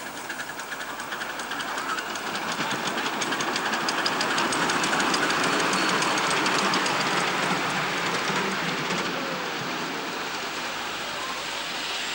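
Ridable live-steam miniature locomotive running past with its riders, its exhaust chuffing in a quick, even beat over a steady noisy rush. The beat grows louder as it comes by, then fades and gives way to a smoother rush near the end.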